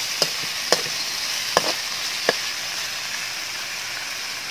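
Flaked milkfish (bangus) meat sizzling steadily in hot oil with garlic and onion in a metal wok, with four sharp clinks of a metal spatula striking the wok in the first two and a half seconds as the meat is stirred and broken up.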